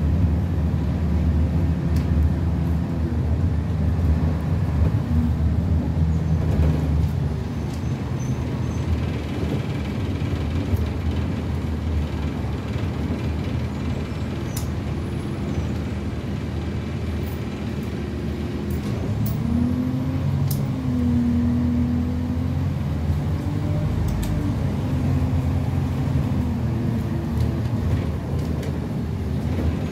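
Optare Solo M950 single-deck bus heard from inside the saloon while under way in slow traffic. Its diesel engine drones steadily, the pitch shifting as it slows and pulls away, with a wavering tone about twenty seconds in.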